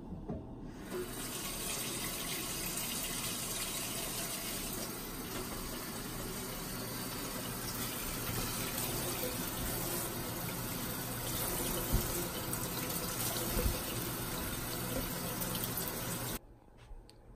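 Kitchen faucet running into a stainless steel sink, the stream splashing over apples in a plastic colander as they are rinsed by hand. The steady water noise starts about a second in and cuts off suddenly near the end.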